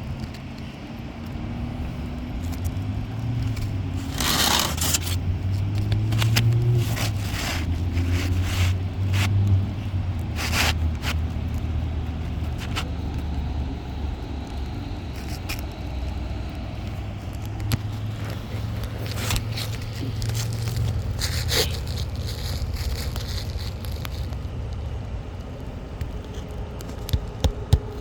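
Scraping and clicking of tools and asphalt roof shingles being worked loose and slid into place, over a steady low rumble, with a few sharp knocks near the end.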